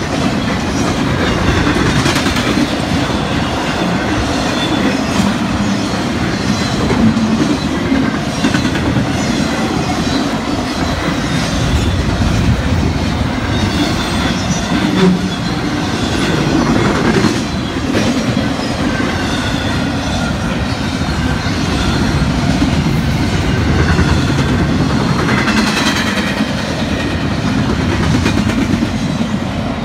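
Double-stack intermodal freight train's cars rolling past, steel wheels running on the rails, steady and loud.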